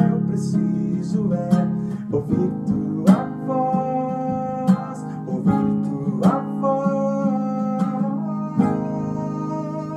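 Nylon-string classical guitar with a capo, strummed slowly: chords ring out, with a new strum about every one and a half seconds.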